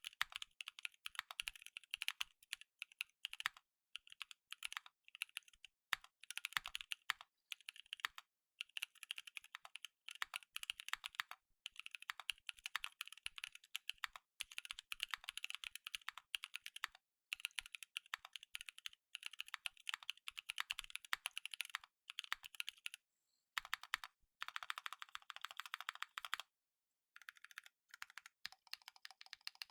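Typing on a Brutal60 60% mechanical keyboard with stock Anubis tactile switches, GMK keycaps, an FR4 plate and an O-ring top mount, the spacebar foamed and its stabilisers lubed. Quick runs of keystrokes in bursts of a second or a few seconds, with short pauses between them.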